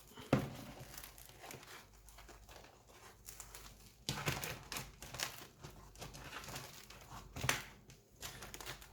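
Crusty baguette crackling and crunching as it is pried open along its cut, with irregular small crackles and a couple of louder crunches about four and seven and a half seconds in.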